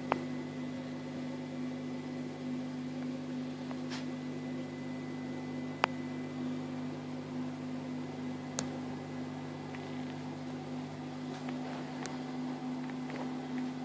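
Steady electric hum and hiss of a Red Sea Max 130D reef aquarium's built-in pumps and fans running, with about five short sharp clicks scattered through it.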